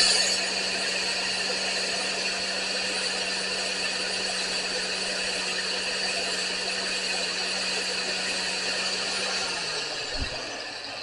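Electric grinder that has just been grinding a broken bolt's tip, now running free with a steady hum, then winding down near the end. A short low knock follows just after.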